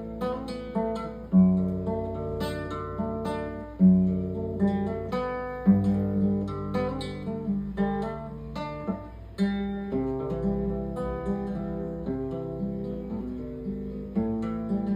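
Acoustic guitar playing a slow picked introduction to a hymn: a strong bass note struck every two seconds or so, with chord tones picked over it and left ringing.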